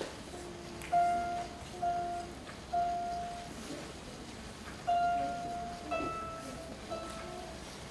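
Small lever harp plucked one note at a time: about seven single notes in a slow, halting melody, each ringing and fading before the next.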